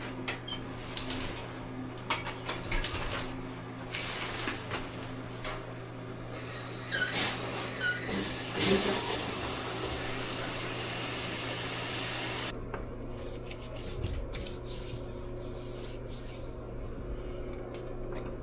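Bathtub shower tap turned on, water spraying with a steady loud hiss for about four seconds in the middle, then stopping abruptly. Before and after it, soft rubbing and handling clicks over a steady low hum.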